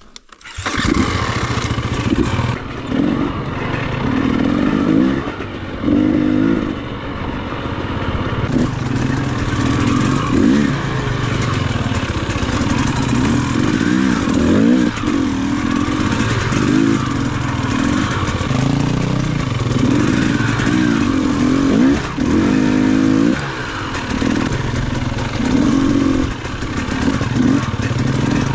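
Off-road dirt bike engine being ridden hard, its pitch rising and falling over and over as the throttle is opened and closed every second or two.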